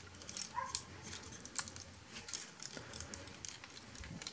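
Faint clicks and small taps of a plastic transforming robot toy's parts being handled, pressed and folded by hand, with a brief faint higher-pitched note about half a second in.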